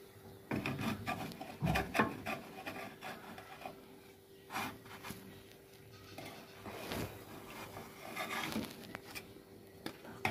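Wooden spatula scraping and rubbing against a frying pan as small semolina flatbreads are lifted and turned over, in several short bouts, over a faint steady hum.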